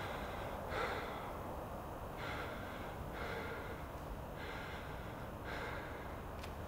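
A person breathing heavily, audible in-and-out breaths about one a second, over a steady low outdoor rumble.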